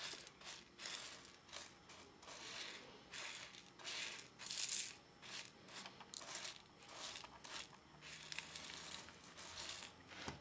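Paint-edger sponge pad brushed back and forth over loose rhinestones on a rhinestone template: a run of faint scraping swishes, one or two a second, with the stones rustling as they settle into the template's holes.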